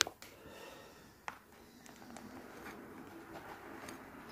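Light handling noises of tools on a work surface: a sharp click at the start and another about a second later, then faint rustling as the soldering iron is brought to the point motor.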